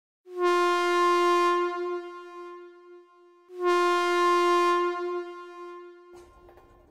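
Two identical long horn blasts on one note, each bright for about a second and then fading away. Near the end, the rumbling noise of a rail vehicle moving off begins.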